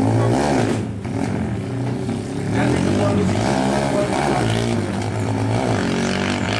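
Honda Tiger drag bike's single-cylinder four-stroke engine, bored out to 300cc, pulling away and revving up and dropping back about four times.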